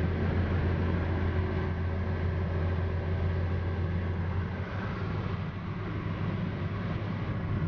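Car cabin noise at motorway speed: a steady rush of tyres and wind with a low drone, which eases about four and a half seconds in.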